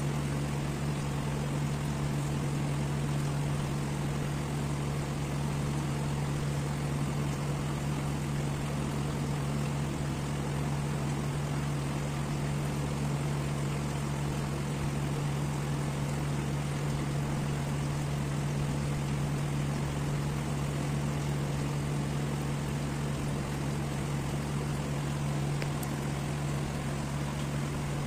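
Steady low mechanical hum with an even hiss over it, like a motor running.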